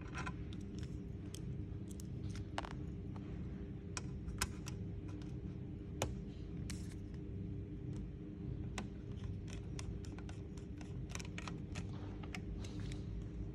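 Irregular small clicks, taps and scratches of hands working on a laptop, over a steady low hum.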